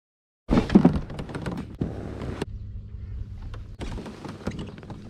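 Half a second of silence, then a loud burst of knocks, thumps and rattles as gear and a caught bass are handled in a fishing kayak. A steady low hum then runs under scattered clicks and taps.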